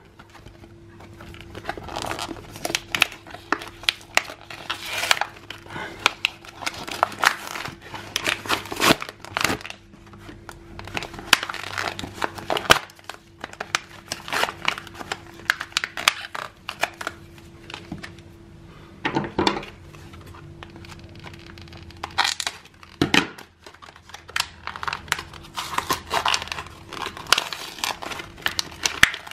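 Plastic blister pack and its cardboard backing card being crinkled and torn open by hand, in irregular crackles and rips.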